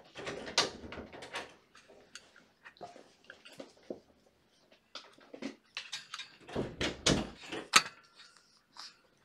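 Irregular rustles, knocks and bumps from a kitten nosing up against the camera, with the loudest thumps about seven seconds in.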